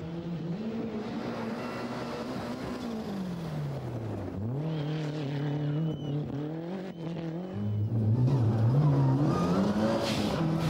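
Rally car engines revving hard on a gravel stage, the pitch climbing and dropping again and again through gear changes. About two-thirds of the way through, a louder car takes over.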